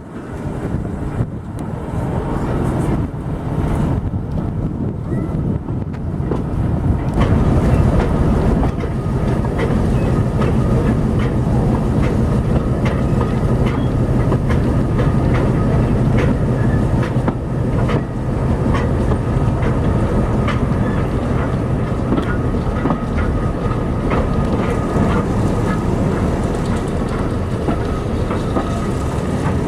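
Railway train running along the track: a steady rumble with wheels clicking over rail joints. The sound builds over the first several seconds, then holds steady.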